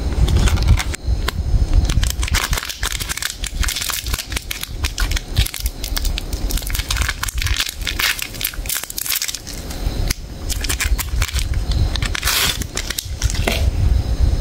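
Plastic wrapper of an individual Cadbury Chocobakes cookie pack crinkling and crackling as it is handled and torn open by hand, with a louder burst of crinkling near the end.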